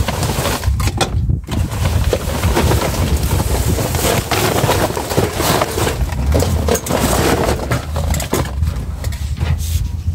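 Paper carry bags and rubbish rustling and crinkling as they are rummaged through and pulled out of a dumpster, with a steady low rumble underneath.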